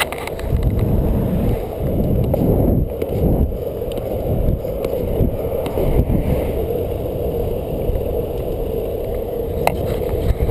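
Longboard wheels rolling fast on asphalt: a steady, loud rolling roar with wind noise, and a few sharp clicks from bumps in the road near the end.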